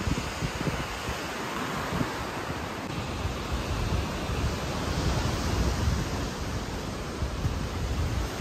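Steady rush of ocean surf, with wind buffeting the microphone in low gusts.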